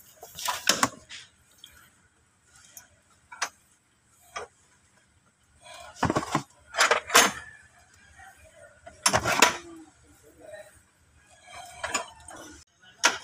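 A socket wrench clinking and clanking against metal parts in the engine bay while the aircon belt idler adjuster bolt is being loosened. There are several separate knocks and short rattles, with quiet stretches between them.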